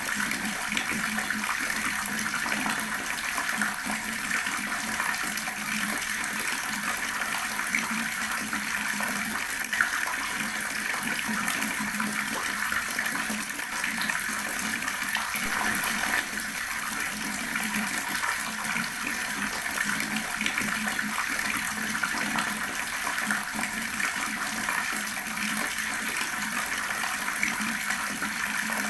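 Water running steadily from a tap: a continuous splashing stream with a few faint ticks now and then.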